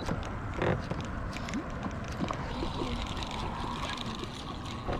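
A spinning reel being cranked to retrieve line, with scattered light clicks over a steady rumble of wind and water noise on the microphone.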